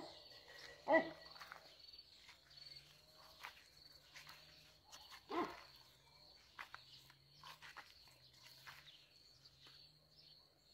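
A dog barking three times, once right at the start, once about a second in and once about five seconds in, over a steady high-pitched tone and faint clicks.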